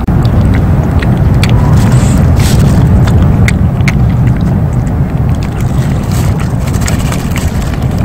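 Street cat purring with a steady low rumble while chewing raw meat, the purr the loudest sound. Frequent short clicks of chewing run over it.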